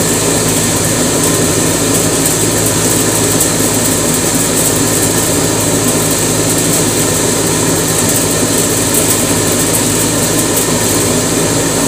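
Cotton candy machine running steadily, its spinner head driven by the motor at full speed with the gas burner lit: a constant hum under a steady hiss.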